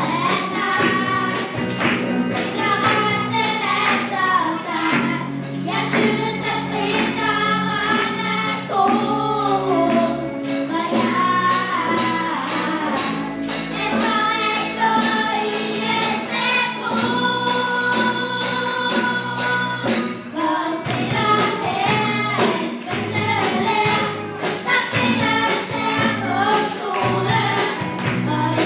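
Group of children singing a song together into microphones, backed by a live band of electric guitar, drum kit and keyboard. A steady beat of light percussion hits runs under the voices.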